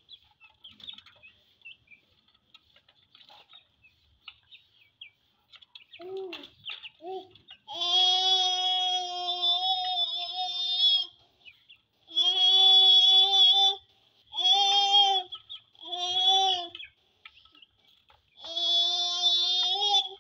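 Faint high chirps for the first few seconds. From about six seconds in, a child's voice sings long held notes in several phrases with short breaks between them.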